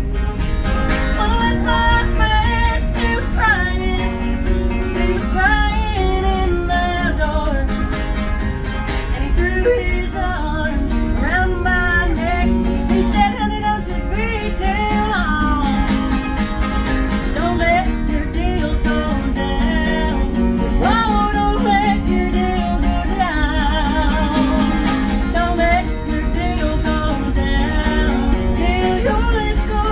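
A woman singing live while playing an acoustic guitar in a passenger rail car, over the steady low rumble of the moving train.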